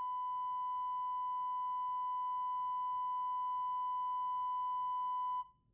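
Steady 1,000 Hz test tone played at full volume through a pair of 6.5-inch car door woofers wired in parallel, reading about 120 dB on the SPL meter, with faint higher overtones above it. It cuts off suddenly near the end.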